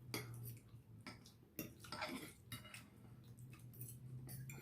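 Cutlery clicking and scraping against plates during a meal: a handful of short, scattered clinks over a faint low steady hum.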